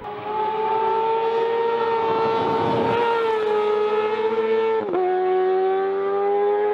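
A 2008 Yamaha R6's inline-four engine through a Leo Vince full exhaust (stainless steel headers, titanium slip-on), running at high revs under hard acceleration. Its pitch climbs slowly, drops sharply about five seconds in on an upshift, then climbs again.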